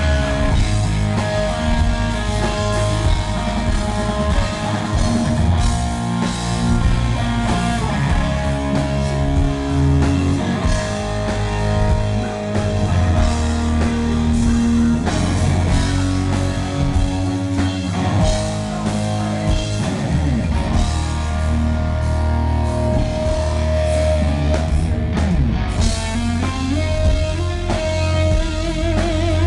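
A rock band playing live and loud, with electric guitar and drum kit. Held guitar notes bend in pitch in the second half.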